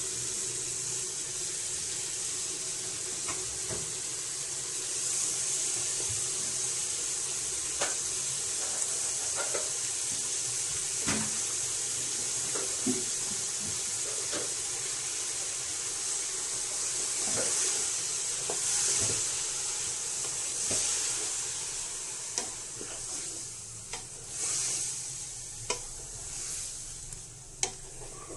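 Food sizzling in a pressure cooker pot on the stove as chopped spinach is mixed in, with scattered clicks and knocks against the pot. The sizzle eases in the last several seconds.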